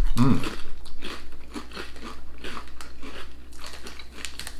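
People biting and chewing thin Walkers potato crisps, a run of sharp crunches one after another. A short closed-mouth "mm" right at the start.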